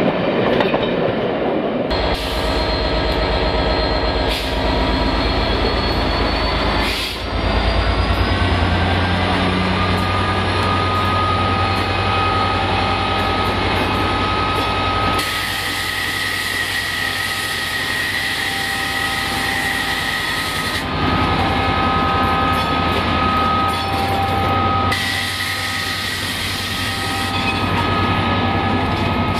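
Class 67 diesel locomotive's two-stroke V12 engine working hard as it pulls a train of coaches away: the engine note climbs as it opens up. A steady high whine and stretches of hiss then ride over the engine drone as the train draws off.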